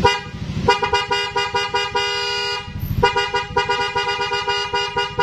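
Denso waterproof electric horn being test-sounded: a rapid string of short honks, a held blast of about half a second, a brief pause near three seconds in, then more short honks.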